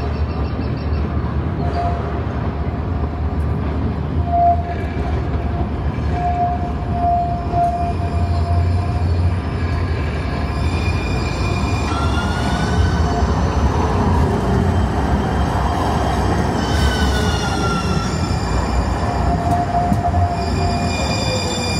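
A Siemens S700 light-rail trolley train arriving and passing close by, with a steady rumble of steel wheels on rail. A thin, high wheel squeal comes and goes as it approaches. About halfway through, a pitched electric whine from its drive rises, holds for a few seconds, then falls away as the train slows.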